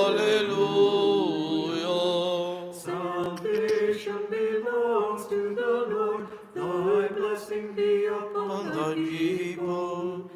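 Orthodox liturgical chant sung a cappella in slow phrases of long held notes, with brief pauses between the phrases.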